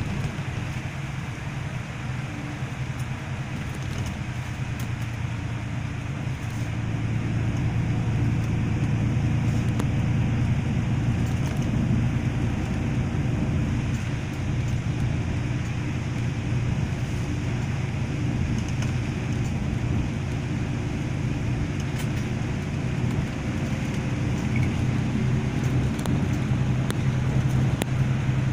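Steady engine and tyre noise heard from inside a moving vehicle on a wet road: a continuous low hum with a hiss of road noise, getting a little louder about seven seconds in.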